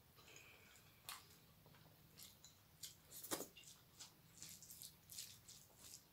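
Faint wet squishing and smacking of rice and dal being mixed by hand on a steel plate and chewed, with scattered short clicks, the sharpest about three and a half seconds in.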